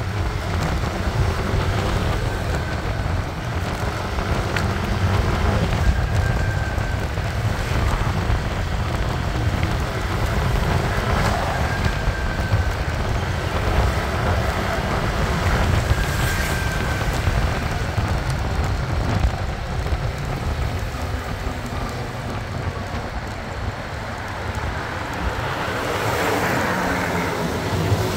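Wind buffeting the microphone and road and traffic noise while riding a small motorcycle, a steady low rush throughout.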